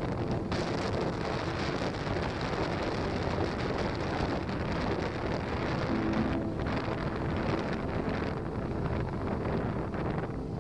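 Wind buffeting the microphone: a steady low rumble of noise, with faint traces of an engine-like hum partway through.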